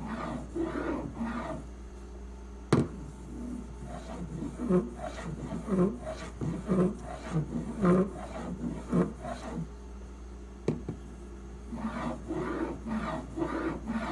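Stainless steak knife edge, held in a clamp sharpening guide, stroked back and forth across a sharpening stone: a rhythmic grinding scrape at about two strokes a second, in runs with short pauses. Two sharp clicks, about 3 s and 11 s in, stand out over the scraping.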